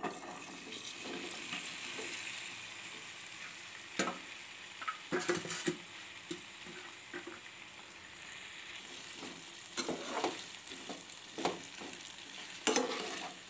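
Chopped okra sizzling steadily in hot oil in a metal pan. A perforated metal ladle scrapes and clinks against the pan now and then as the okra is stirred, loudest near the end.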